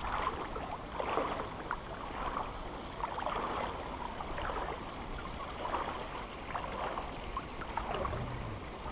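River water lapping and gurgling close to the microphone in irregular small splashes, over a steady low wind rumble.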